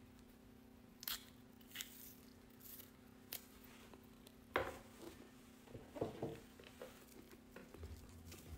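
A few faint, scattered clicks and rustles of small objects being handled, over a steady low hum. The sharpest click comes about halfway through, with a short cluster of rustles soon after.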